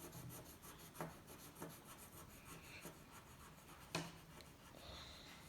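Faint scratching and rubbing of a coloured pencil shading on paper, with two light taps about one second and four seconds in.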